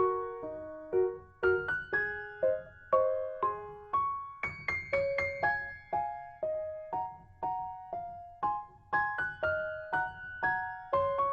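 Background piano music: a gentle melody of single struck notes, each ringing and fading.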